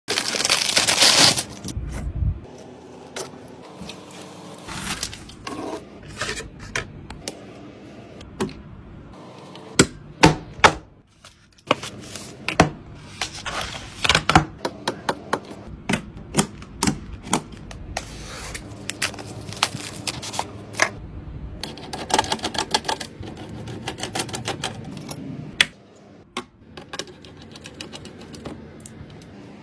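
Irregular sharp clicks, taps and knocks of hard computer parts being handled and fitted during a PC build, sometimes single, sometimes in quick clusters, with a louder rustling stretch in the first second or so.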